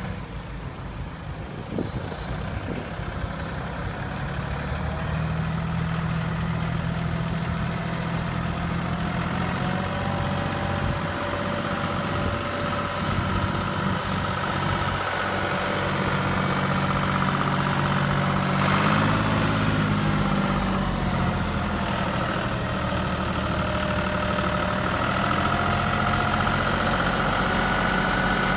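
John Deere 5310 tractor's diesel engine running as the loader tractor drives up and pushes its bucket into a manure pile. It grows louder as the tractor comes closer, and its pitch shifts up and down with the throttle about two-thirds of the way in.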